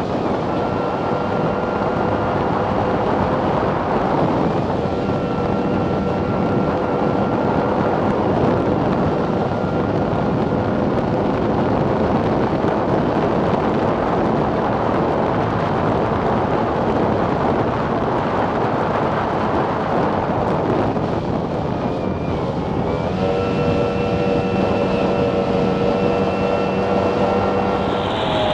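Formula 1 tunnel-hull racing powerboat's outboard engine running at high speed, heard onboard over a loud rush of wind and water spray. About three-quarters of the way through, the engine note dips briefly and then settles at a new pitch.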